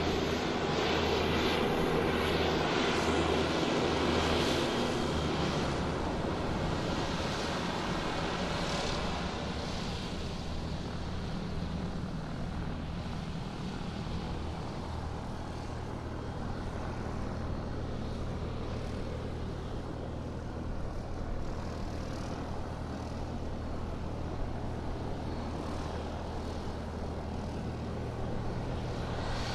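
Airplane engine running steadily as the aircraft taxis: a steady low hum under a broad rushing noise, a little louder in the first few seconds and then even.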